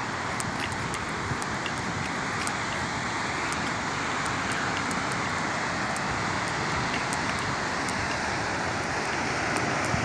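Steady rushing roar of a tall waterfall, growing a little louder.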